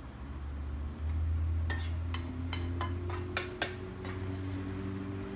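Metal spoon clinking and scraping against a stainless steel mixing bowl as diced beets are spooned into a metal ring mold, a quick run of clicks in the middle. A low steady hum runs underneath and gets louder about a second in.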